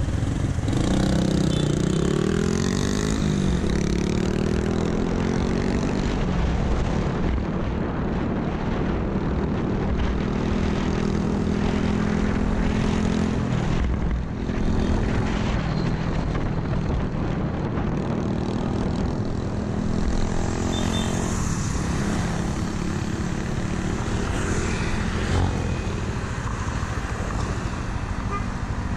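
Yamaha NMAX 155 scooter's single-cylinder engine pulling away from a stop, its note rising over the first few seconds, then running at riding speed with small rises and falls, under steady wind noise on the camera microphone.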